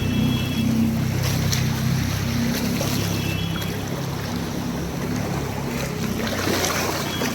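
A vehicle's engine running steadily as it moves through a flooded, waterlogged road, under a constant rush of water and rain noise.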